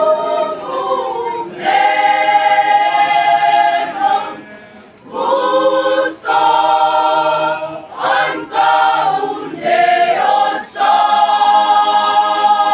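Mixed choir singing a cappella in sustained phrases, with short pauses for breath between them.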